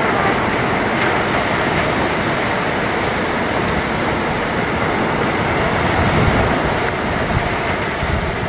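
Ocean surf washing onto the beach, with wind gusting across the microphone, making a steady noise.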